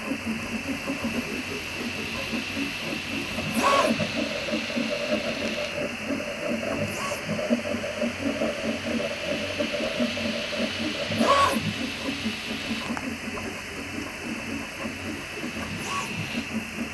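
Prusa i3 MK3S+ 3D printer running, its stepper motors buzzing and chattering as it prints several small cylinders one after another. Twice, about four and eleven seconds in, there is a brief louder whir as the print head travels quickly from one part to the next.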